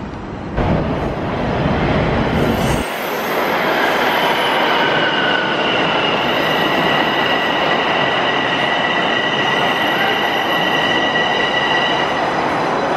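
TTC subway train moving along the station platform: a loud, steady rushing rumble of the cars, with a steady high-pitched squeal from about four seconds in until near the end.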